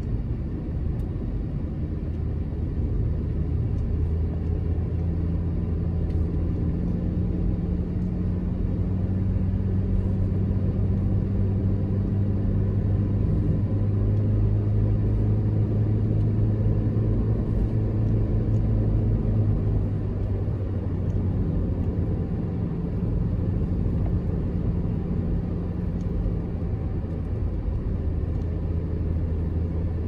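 Car engine and tyre noise while driving at a steady cruising speed: a low steady drone that climbs slightly in pitch over the first two-thirds, then eases off.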